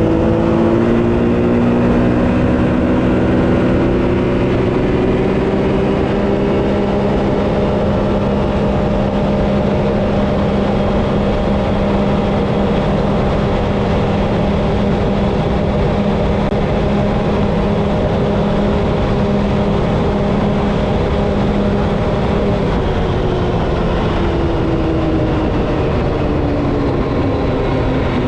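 Can-Am Maverick X3 Turbo RR's turbocharged three-cylinder engine running at full throttle on a top-speed run, its pitch climbing over the first few seconds, holding steady near top speed, then dropping near the end as it slows. A steady rush of wind and tire noise runs underneath.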